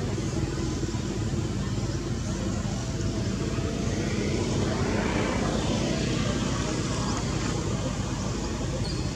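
Steady outdoor traffic noise, with a vehicle passing that swells and fades about four to six seconds in.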